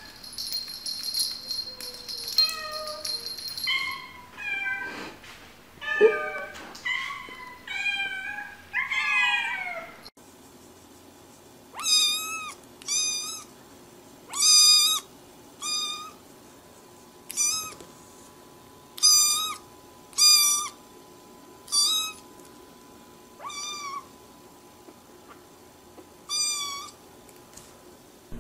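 Cats meowing. For the first ten seconds there are several varied meows in quick succession. Then a black kitten gives about a dozen short, high-pitched mews, one every second or two.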